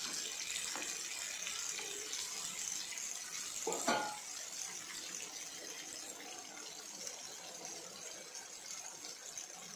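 Purnam burelu deep-frying in hot oil in a kadai, the oil sizzling steadily. Just before four seconds in, a steel slotted spoon clinks once against the pan as a fried dumpling is lifted out.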